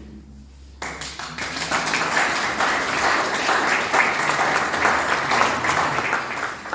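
Audience applauding: many people clapping, starting suddenly about a second in and holding steady.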